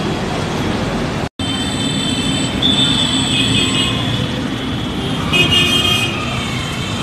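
Dense city street traffic: a steady wash of engine and road noise with vehicle horns honking, once about two and a half seconds in and again near the end. The sound cuts out for an instant just over a second in.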